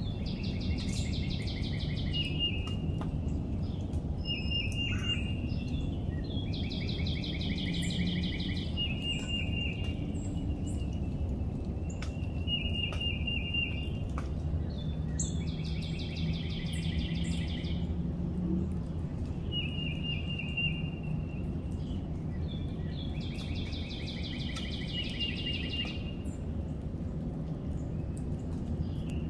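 Wild songbirds singing: a short, rapid trill repeated every few seconds alternates with a longer song of quick notes about every eight seconds, over a steady low rumble of background noise.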